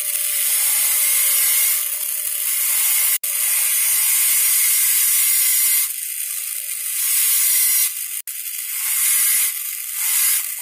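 High-speed air-turbine dental handpiece running with a steady high-pitched whine and hiss as its bur cuts depth orientation grooves into a typodont premolar. It grows quieter for a stretch in the middle and cuts off abruptly twice, about five seconds apart.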